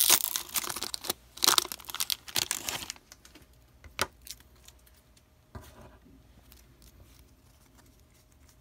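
Foil wrapper of a football trading card pack crinkling and tearing as it is ripped open by hand, for about three seconds. A single tap follows about four seconds in, then only faint handling of the cards.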